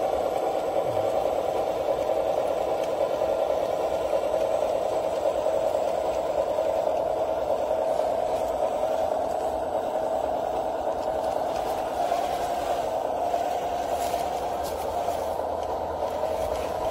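Small engine of a scale RC Caterpillar D9 crawler tractor running steadily as it tows a log-laden trailer, with rattling from the tracks and running gear.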